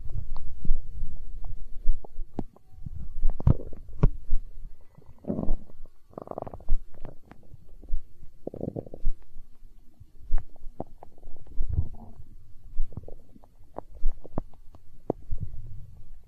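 A hungry stomach growling and gurgling in irregular bouts, with short sharp pops and clicks in between; the longest gurgles come about five to nine seconds in.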